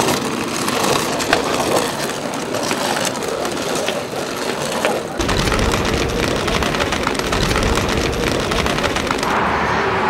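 City street ambience: a busy jumble of clicks and rattles over noise, then about halfway through a steady low rumble of road traffic. Music comes in near the end.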